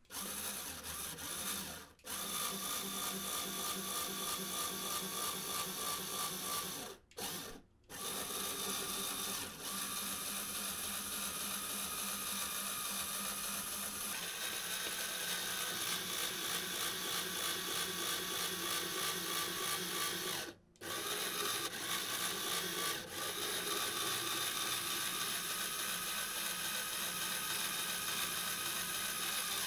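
LEGO Technic electric motor whirring through its plastic gear train as it turns the bending turntable against a wire. It runs steadily, cuts out briefly about 2 s in, twice around 7–8 s and again around 21 s, and shifts in pitch about halfway through.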